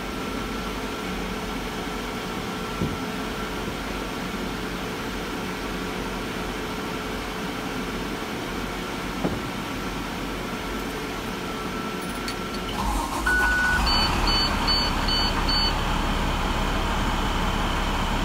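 School bus under-dash A/C unit running on test, its new blower motor moving air steadily over the hum of the running bus. About 13 seconds in the running sound gets louder and fuller, with a short tone and then five quick high beeps, and it stays at the louder level.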